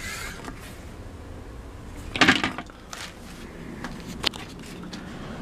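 Scattered knocks and clicks, with a louder rattling scrape about two seconds in.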